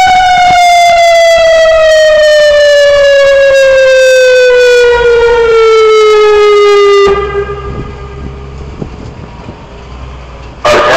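Outdoor emergency warning siren sounding one long, very loud wail that falls steadily in pitch, then cuts off abruptly about seven seconds in. Wind noise follows, and a loud burst of sound comes near the end.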